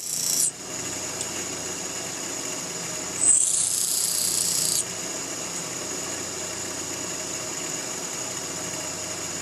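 Bench grinder running with a steady hum while a steel lathe tool blank is pressed to its wheel in short passes. Each pass is a high grinding hiss: one stops about half a second in, and a louder one runs from about three to five seconds in.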